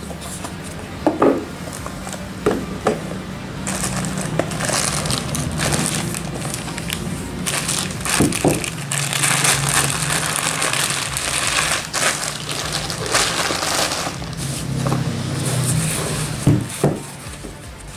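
Plastic packaging wrap crinkling and rustling as a riflescope is unwrapped, with a few sharp knocks from cardboard boxes being handled early on and near the end.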